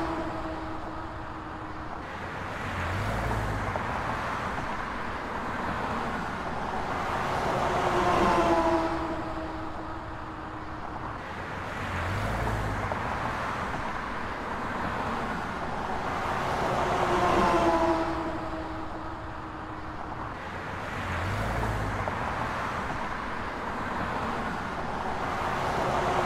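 Street traffic noise in a repeating loop. About every nine seconds a vehicle passes, swelling and then falling in pitch, and between the passes there is a low thump.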